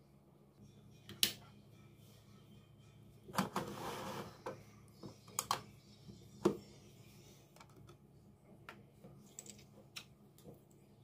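Scattered sharp plastic clicks and knocks from a mini toy claw machine and its plastic coins being handled, over a faint steady low hum.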